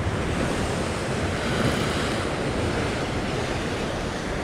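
Sea surf washing against the rocks below, a steady rush of water, with wind buffeting the microphone.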